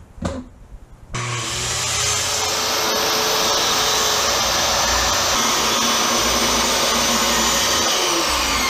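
After a couple of short clicks, a circular saw starts about a second in and runs steadily as it cuts through a plywood sheet.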